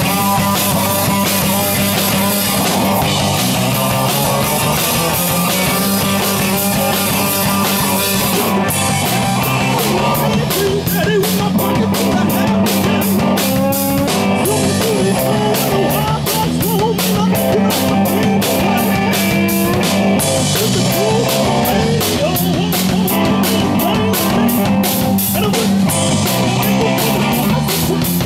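A live rock band playing loudly: electric guitars over a drum kit. About eight seconds in, the drums pick up a fast, steady beat.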